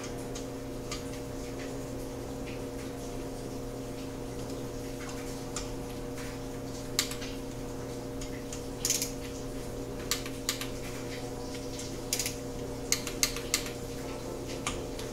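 Hand wrench ratcheting and clicking as the Torx screws holding a Harley-Davidson stator are run in and torqued. Faint ticks at first, then sharper metal clicks and taps from about halfway, several in quick succession near the end, over a steady low hum.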